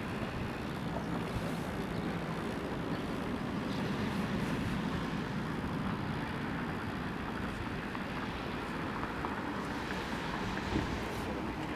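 Steady outdoor background noise, a low rumble with hiss, without any distinct event.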